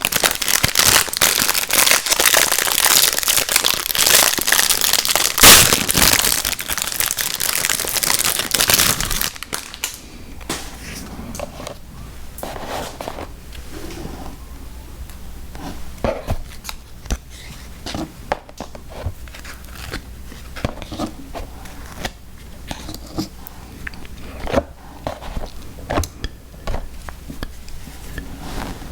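Plastic packaging crinkling loudly for about nine seconds. After that come quieter chewing and mouth sounds with scattered small clicks.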